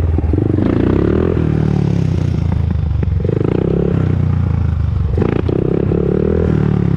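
2001 Honda TRX400EX ATV's single-cylinder four-stroke engine running under way, its pitch falling and rising several times as the throttle is opened and eased off.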